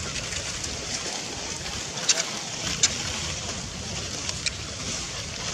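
Steady outdoor background noise with wind rumbling on the microphone, and three brief sharp clicks about two, three and four and a half seconds in.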